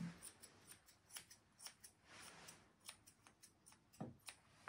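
Grooming scissors snipping a dog's leg fur: about a dozen quick, faint snips at an uneven pace.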